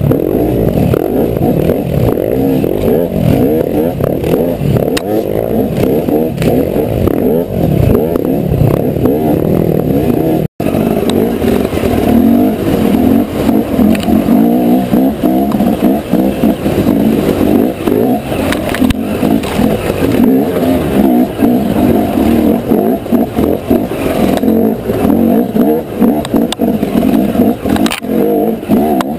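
Enduro dirt bike engine heard on board, revving and pulling hard with the throttle worked up and down on rough ground, with scraping and clattering of the ride. The sound drops out for an instant about ten seconds in, then carries on.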